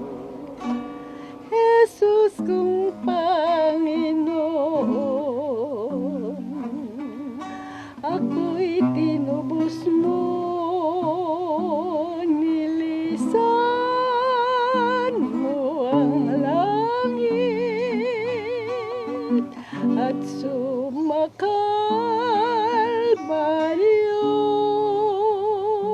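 Singing voice with wide vibrato over acoustic guitar accompaniment in a live Tagalog worship song; the sung phrase ends on the word "Kalbaryo" near the end.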